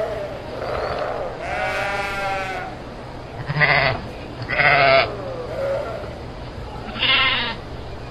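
Sheep bleating, several separate calls from more than one animal, some long and quavering, over a steady low hum.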